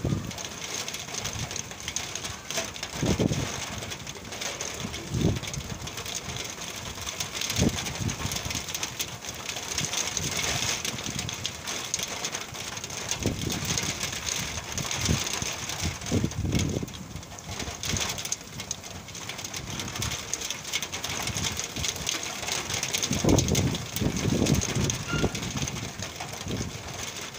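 Rain falling on a flat concrete rooftop, a steady hiss of many drops, with gusts of wind buffeting the microphone every few seconds.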